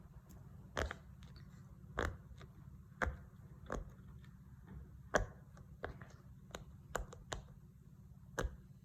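Silicone heart-shaped pop-it fidget toy having its bubbles pressed, a string of separate pops at irregular spacing, about one or two a second.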